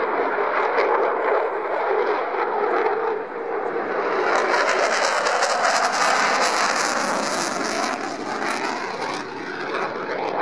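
Eurofighter Typhoon's twin EJ200 turbofan engines as the jet flies a display pass: a loud, broad rushing jet noise, with a harsh crackle from about four to nine seconds in.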